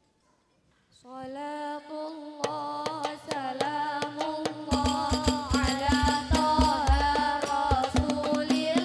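After a near-silent first second, a child's solo voice starts singing a rebana song through a microphone, holding long wavering notes. About halfway in, the rebana frame drums come in, beating a steady rhythm under the singing.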